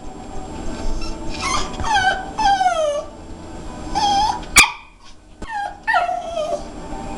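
Jack Russell terrier whining: a string of high whimpers, several sliding down in pitch, with a sharp click about halfway through.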